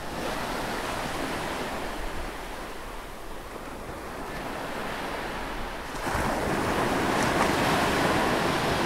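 A steady rushing noise with no pitch, swelling louder about six seconds in.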